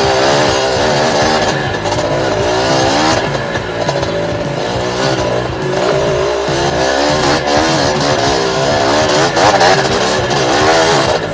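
Yamaha DT 125's single-cylinder two-stroke engine revving up and down as the throttle is worked on and off over rough ground, with background music laid over it.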